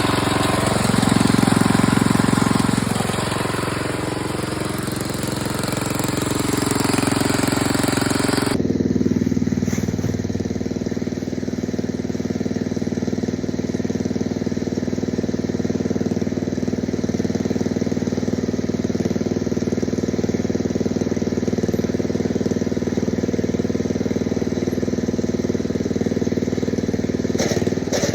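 Lawn mower engine running steadily; its pitch rises briefly about a second in and drops back, and from about nine seconds in it sounds duller.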